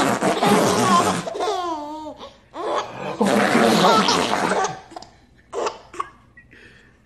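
A baby laughing hard in repeated bursts, mixed with an adult's laughter. There are two long breathy bursts, the first right at the start and the second about three seconds in, with wavering squeals between them and short bursts near the end.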